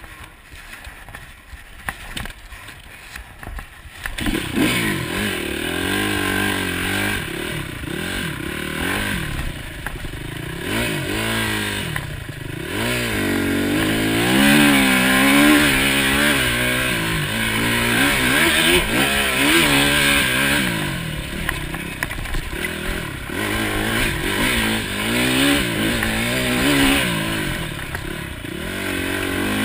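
Enduro motorcycle engine heard on board while the bike is ridden along a rough woodland trail. It is quieter for the first four seconds, then revs up and down again and again as the rider accelerates, shifts and backs off.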